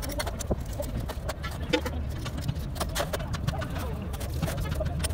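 Irregular clinks and knocks of greasy metal truck gearbox parts being handled and set down in a metal tray of oil, over a steady low rumble.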